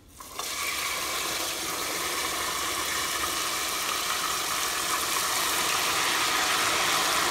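Dark stir-fry sauce poured into hot oil in a saucepan, sizzling hard. The sizzle starts suddenly as the sauce hits the oil and holds steady, growing a little louder as the mixture comes to a boil.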